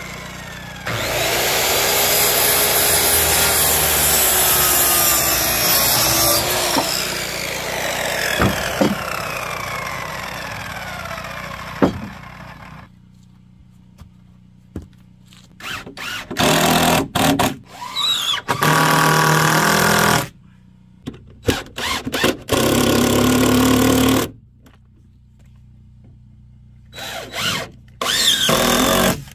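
A circular saw cutting through a wooden board for about ten seconds. Then a cordless drill driving screws into wood in several short bursts, its motor spinning up each time.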